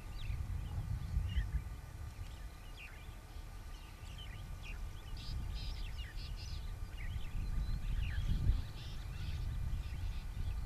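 Birds chirping and calling off and on over a low steady rumble, with one dull thump about eight and a half seconds in.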